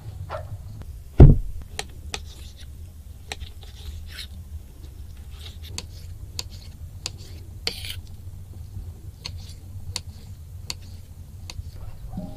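Kitchen knife dicing raw chicken breast on a marble cutting board: sharp, irregular taps of the blade striking the stone, over a low steady hum. About a second in comes one heavy thump, the loudest sound, as the marble board is set down on the table.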